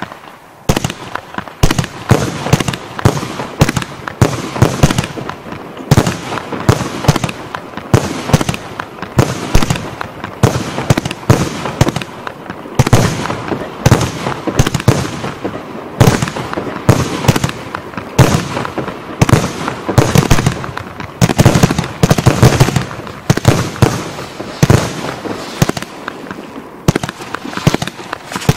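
E525G Element G compound firework cake firing continuously: a rapid, unbroken series of launch thumps and bursts, several a second, starting about half a second in.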